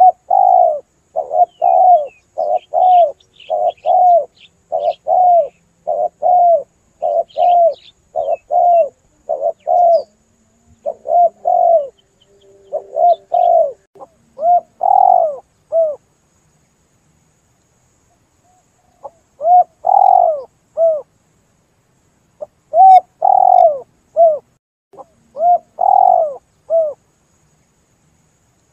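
Spotted dove (tekukur) cooing, as used for a lure call: a rapid run of short arching coo notes, about two a second, that breaks off midway and resumes after a few seconds of silence. Faint twittering of small birds is heard in the first few seconds.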